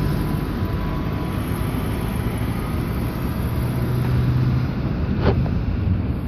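London buses and road traffic running, a steady low engine rumble under street noise, with one short knock about five seconds in.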